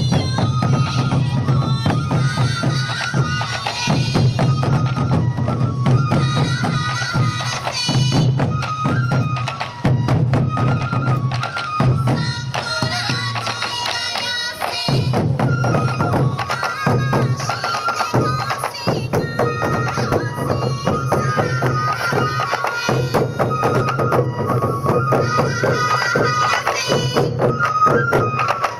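Sansa Odori festival music: taiko drums beaten in a steady rhythm under yokobue bamboo flutes playing a repeating high melody.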